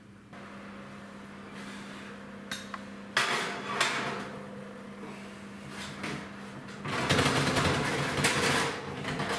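An oven door opening with a clank about three seconds in, then cut bread pieces tipped from a plate onto a metal oven tray, a rattling clatter of many small knocks lasting about two seconds. A steady low hum runs underneath.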